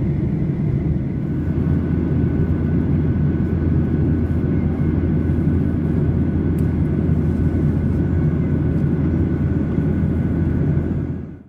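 Steady cabin noise inside a Boeing 737-800 climbing after takeoff: the low rumble of its CFM56 jet engines and the airflow, with a faint steady whine above it. The sound fades out quickly near the end.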